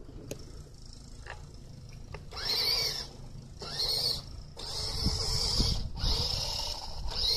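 Toy RC car's electric motor whining in about four throttle bursts, each rising and falling in pitch as the car drives over sand and climbs a mound, with a low rumble underneath.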